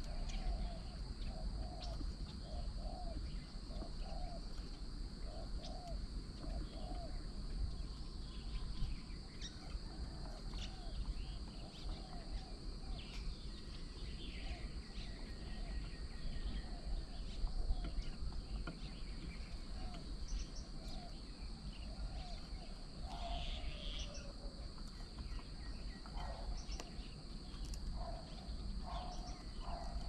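Outdoor bird ambience: a bird repeats a short low call about twice a second for the first dozen seconds, while other birds give scattered chirps and calls. Underneath are a steady high insect drone and a low rumble.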